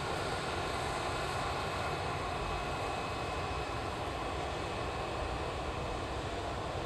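Jet airliner engines running steadily at low power, a constant rushing noise with a faint steady high whine.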